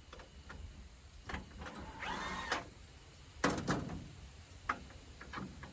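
Metal knocks and clinks of hand tools working on a combine soybean head's cutter bar while a guard is fitted, with a short whirr about two seconds in.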